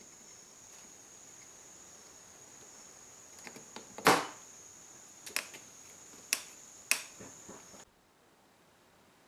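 Hard knocks of wood on wood as the pieces of a traditional Japanese cross joint are fitted and tapped together: about five sharp knocks over a few seconds, the loudest about four seconds in, over a faint steady high whine that cuts off near the end.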